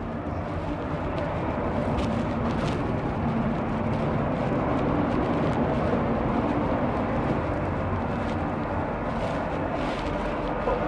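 Steady rumble and hiss inside a metro train carriage, growing slightly louder over the first couple of seconds and then holding level, with a low hum and a few faint knocks.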